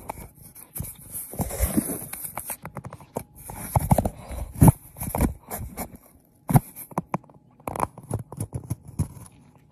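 Cat inside a cardboard box scratching and rustling against the cardboard: irregular scrapes and taps with a few heavier knocks, pausing briefly a little past the middle.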